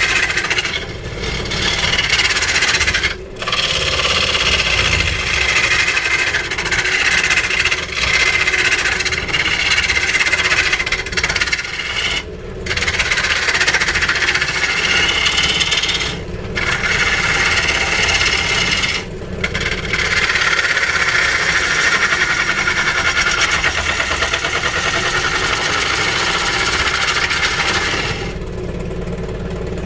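A tool scraping and cutting into weeping willow wood over a steady motor hum, lifted off briefly a few times. The cutting stops near the end, leaving the motor running on its own.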